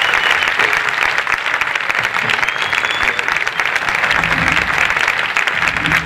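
Audience applauding, steady dense clapping at the close of a live flamenco piece.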